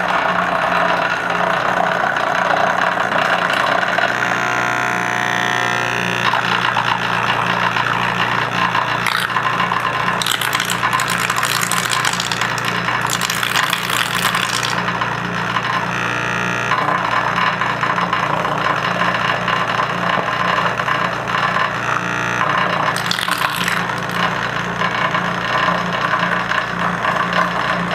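Metal disintegration machine burning out a broken easy-out inside a broken 3/8-inch bolt: the arcing, vibrating electrode gives a steady electrical buzz over a low hum. Louder crackling hiss comes in for a few seconds about ten seconds in and again briefly near the end.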